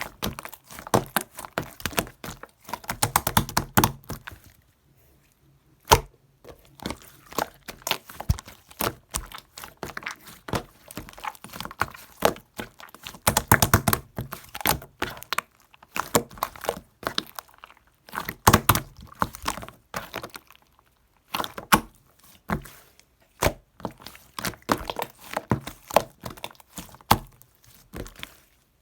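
Sharp cracks and clicks in quick, irregular runs, like something brittle being crunched or crackled close up, broken by short pauses.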